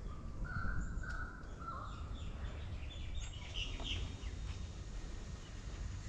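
Australian magpie calling: clear pitched notes about a second in, then higher notes midway, over a low steady rumble.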